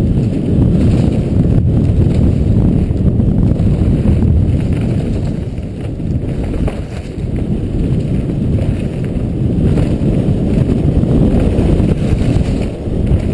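Wind rumbling over a helmet-mounted action camera's microphone on a downhill mountain bike descending fast, mixed with rattles and knocks from the bike and tyres over the rough dirt trail.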